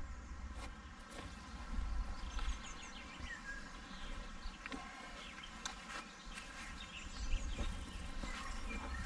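Faint outdoor ambience of insects and a few bird chirps, with a low rumble and a few soft knocks and rustles as bags are loaded into the car's cargo area.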